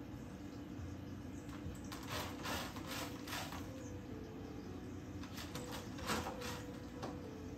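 A cat scratching and digging in litter in a plastic litter box, a run of quick scrapes repeated in two bouts, the first about two seconds in and the second about five and a half seconds in.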